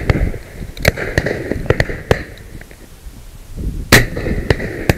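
Shotgun shots from several guns: a string of sharp reports, the loudest about a second in and just before four seconds, with fainter shots between.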